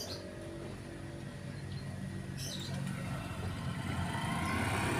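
A motor vehicle's engine running steadily, growing louder over the last two seconds as it draws nearer.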